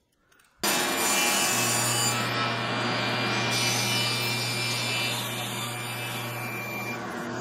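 A shop vac switches on suddenly about half a second in, and a power saw cuts through half-inch MDF over its steady running. The saw's hum drops away near the end.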